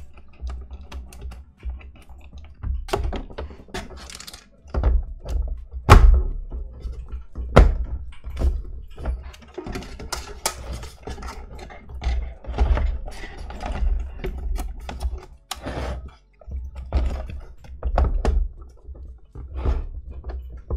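The plastic housing of an automatic cat feeder being handled and fitted back together on a workbench: irregular knocks and clacks of plastic parts with low thumps against the bench, the loudest knock about six seconds in.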